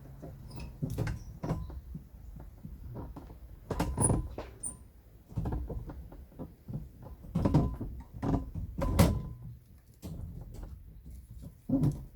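Irregular knocks and clatter of handling and working materials, loudest about four seconds in and again around seven to nine seconds.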